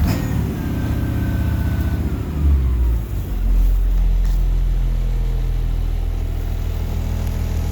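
Blue Bird bus diesel engine running at high idle, with a faint falling whine; about two and a half to three seconds in the revs drop and it settles into steady, lower running.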